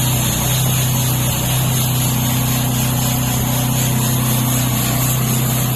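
The engine of a homemade sawmill running steadily at a constant speed, with a loud, even hum.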